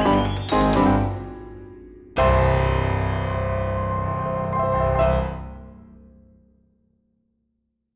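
Piano music. A quick rising run of notes ends about a second in, then a loud chord is struck about two seconds in and rings on, with another note struck near five seconds, before dying away to silence.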